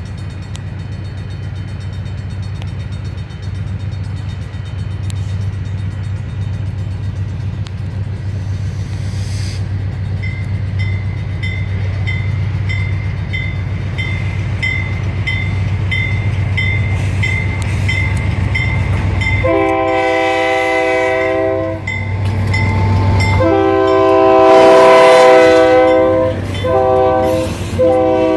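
Diesel freight locomotive approaching with a steady low engine rumble that grows louder, joined about ten seconds in by a high ding repeating about twice a second. Later the locomotive's air horn sounds a chord of several notes in two long blasts, a short one and another long one, the standard grade-crossing signal.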